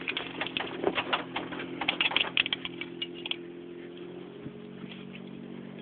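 Aircraft lap-belt buckle and strap being fastened: a quick run of metallic clicks and rattles for about the first three seconds, then only a few, over a steady low hum.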